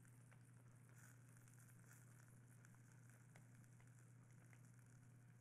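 Near silence: room tone with a steady low hum, faint hiss and a few soft clicks.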